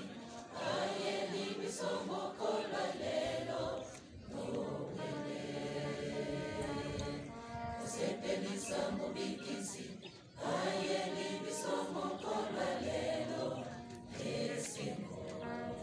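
Large mixed choir of girls and boys singing together, with short breaks between phrases about four seconds in and again about ten seconds in.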